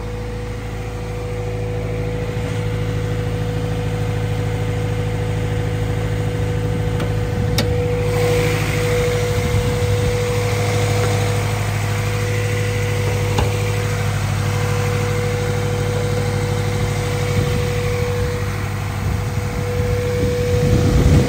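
1999 Honda Civic Si's 1.6-litre DOHC VTEC four-cylinder idling steadily, with a single sharp click about eight seconds in.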